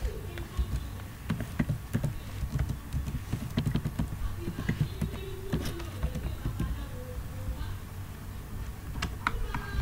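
Computer keyboard typing: irregular key clicks over a steady low background rumble.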